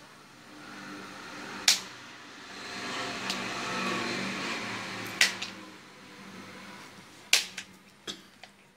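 Wooden ice-cream sticks cracking sharply as they are cut, about eight separate snaps spaced a second or so apart over a low rustle of handling.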